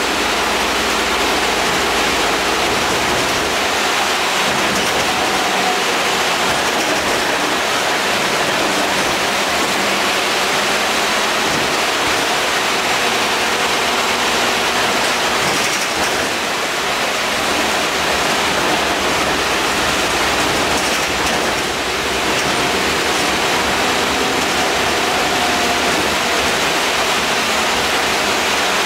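Steady rushing hiss of the air-conditioning in the lower deck of an Alexander Dennis Enviro 400 double-decker bus, with the bus's engine and road noise under it. The level dips slightly twice, about sixteen and twenty-two seconds in.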